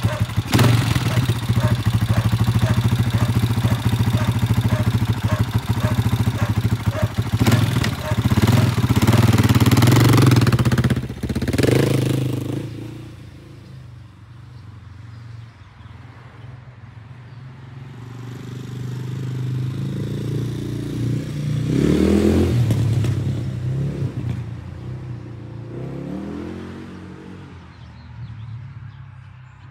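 Husqvarna TE610 motorcycle's single-cylinder four-stroke engine idling with an even thump, then revved and pulling away, fading off. It comes back and passes by, louder again near the middle of the second half with its pitch falling as it goes, then fades away.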